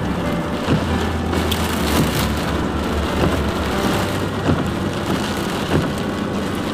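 Heavy rain drumming and crackling on a car's windshield and roof, heard from inside the moving car, over a steady low road and engine rumble.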